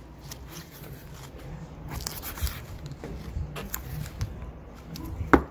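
Light rustling, scraping and clicks of a gloved hand handling the loose edge of an EPDM rubber RV roof membrane, with one louder sharp sound just before the end.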